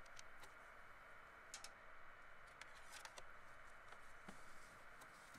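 Faint small clicks and taps of metal cable lugs being fitted onto a battery terminal post, scattered over the first three seconds against near-silent background hiss.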